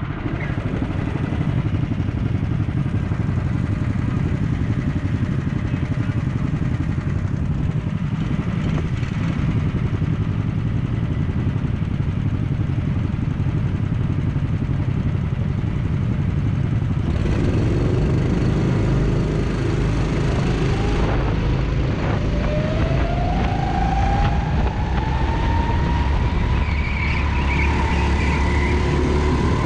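Rental go-kart engines idling on the starting grid, then the kart's engine revving up and accelerating away from a standstill about halfway through, its pitch rising steadily for several seconds before levelling off at speed.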